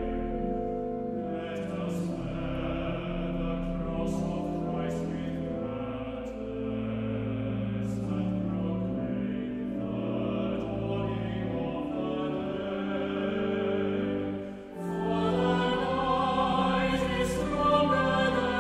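Choral music: a choir singing slow, sustained chords. It breaks off briefly near the end, then comes back louder.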